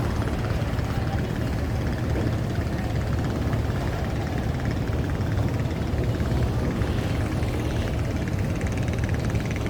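A fishing boat's engine running steadily, a low, even rumble with a fast pulse.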